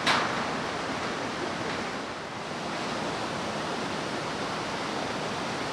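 Steady rushing noise of creek water flowing below, with a short burst of noise right at the start.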